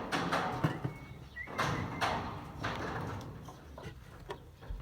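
Irregular knocks and bangs from building work, about seven sharp strikes at uneven intervals, with a short whistle-like tone about a second in.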